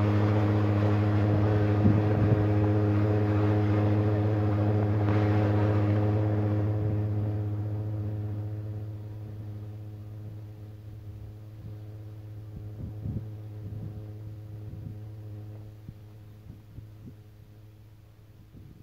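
Steady low hum of a boat engine, holding one pitch and fading away over the second half.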